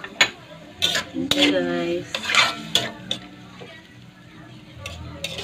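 A spatula scraping and knocking against a metal wok in irregular strokes while stirring pieces of beef skin and onion, over a light sizzle.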